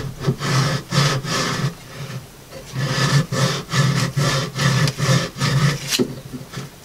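A damp bark-tanned squirrel skin rubbed back and forth over the edge of a wooden board in repeated strokes, about two to three a second, with a short pause about two seconds in. The skin is being worked to keep it supple while it dries, since left alone it would dry hard.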